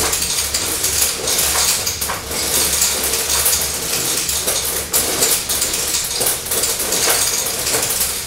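Beads pouring through the pins of a wooden quincunx (Galton board): a continuous clatter of many small beads clicking against the pins and dropping into the bins.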